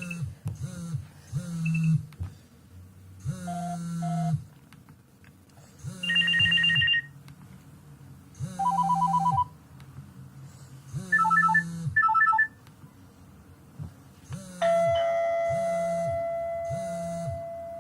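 Nokia 7610 ringtone playing: a synthesized tune with a rhythmic low drum beat and short electronic beeps at changing pitches. A long held note begins near the end.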